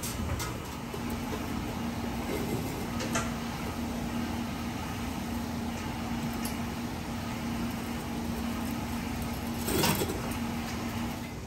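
Hollow charcoal briquettes being stood up and set against one another, giving a few sharp knocks and clinks, the loudest near the end. A steady low hum runs underneath.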